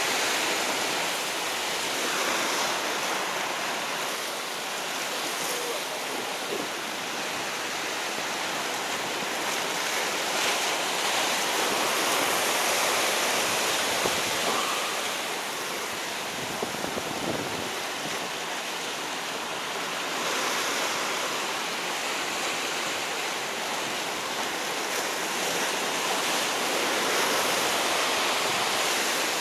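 Sea surf washing on a rocky shore: a steady rushing that swells and eases slowly.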